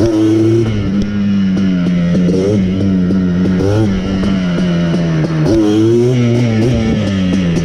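Background music: a steady bass line that steps between held notes, with a sliding melody line over it.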